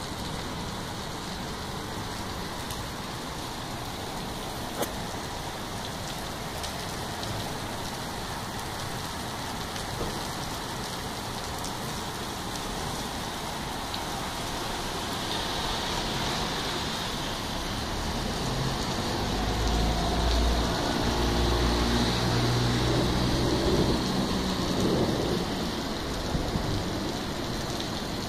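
Steady rain falling on a wet street and rooftops, a continuous hiss. About halfway through a low rumble builds, is loudest about two-thirds of the way in, and fades near the end.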